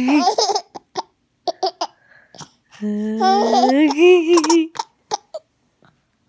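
A baby laughing: short giggles and quick catching breaths, with one long drawn-out voiced sound of about two seconds in the middle whose pitch holds and then wavers upward.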